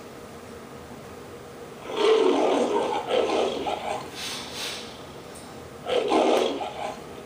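Lion roar of the MGM logo from a VHS tape's soundtrack: a long roar about two seconds in and a second, shorter roar about six seconds in, over steady tape hiss.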